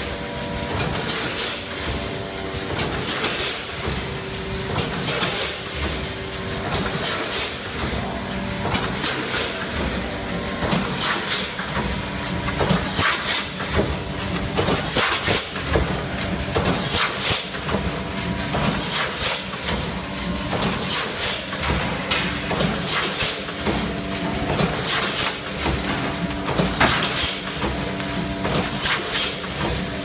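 Rotary premade-pouch packaging machine running: a steady mechanical hum with a sharp hiss of compressed air about every two seconds as its pneumatic stations cycle.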